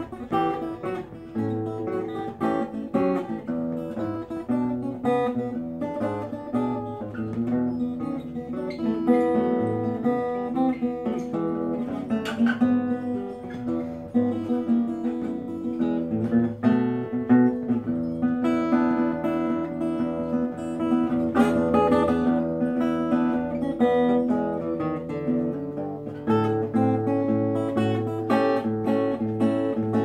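Solo acoustic guitar played fingerstyle, with plucked melody notes over a line of bass notes and no singing.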